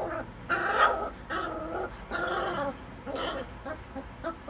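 Four-week-old Caucasian Shepherd puppies giving a run of short yips and small barks, about half a dozen in a row.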